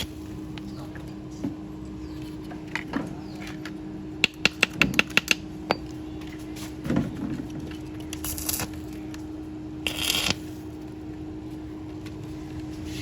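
Workshop tool noise: a quick run of about eight sharp metallic clicks and taps, with scattered single clicks and two short hisses, over a steady hum.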